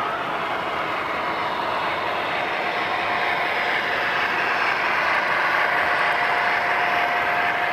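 O-gauge model train, a pair of diesel locomotives pulling hopper cars, running past: a steady mechanical whir and clatter of motors, gears and wheels on the track. It grows louder as the train comes close, over a steady thin whine.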